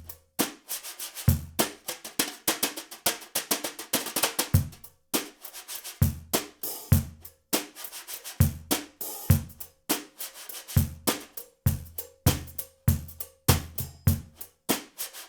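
Drum groove on a small street kit: a De Gregorio Chanela cajon struck by a foot pedal as the bass drum, a Pearl Short Fuse 10x4.5 snare, and Meinl HCS bronze 10-inch hi-hats. Deep cajon thumps fall under a busy run of quick hi-hat and snare strokes.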